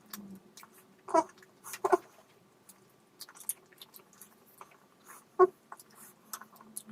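Close-miked eating sounds from a mukbang: chewing with many wet clicks and smacks, broken by three short, louder sounds about a second in, near two seconds and past five seconds.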